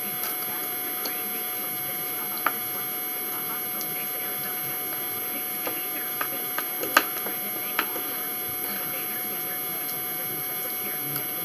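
Steady electrical hum and hiss, with a few scattered light clicks and taps of eating at the table. The sharpest click comes about seven seconds in.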